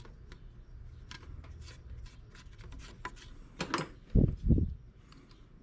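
Scattered light clicks and knocks of parts and tools being handled during engine reassembly, with two dull thumps about four seconds in, the loudest sounds here.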